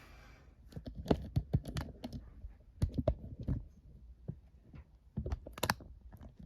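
Irregular clicks and knocks from a plastic box fan being handled and shifted about, in several quick clusters.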